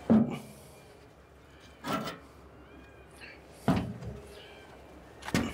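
About four sharp knocks or clunks, a second or two apart, with faint short high squeaks between them.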